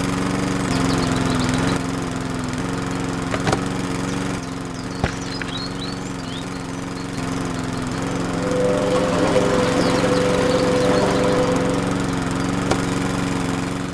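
Small motor of a homemade mini tractor running steadily with a constant hum. A higher whine joins in for a few seconds past the middle, and there are a couple of sharp clicks.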